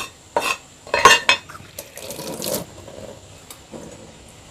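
Metal kitchenware and utensils clinking and knocking in a kitchen sink: a few separate clinks, the loudest about a second in.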